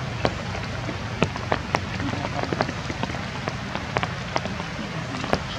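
Rain falling: a steady hiss with irregular, sharp drops landing a few times a second.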